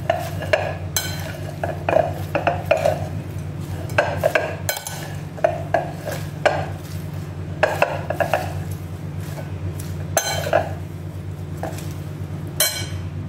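Chopped salad vegetables being tossed by hand in a large bowl: irregular rustles and soft knocks against the bowl, one or two a second, over a steady low hum.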